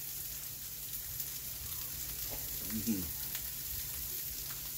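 Seasoned salmon fillets sizzling in melted butter on an indoor electric grill: a steady frying hiss with scattered small pops and crackles.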